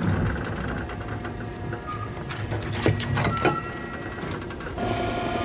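Oil rig machinery running with a steady low hum, broken by several sharp metallic clanks and knocks in the middle. A steady whine sets in near the end.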